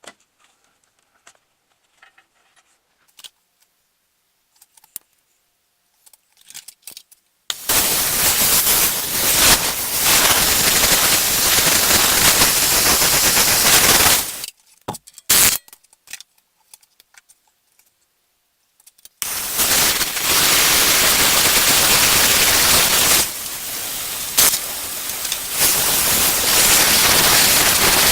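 Impact wrench hammering in two long runs of about seven seconds each, working the bolted flanges of an exhaust Y-pipe loose, after some faint clinking of tools.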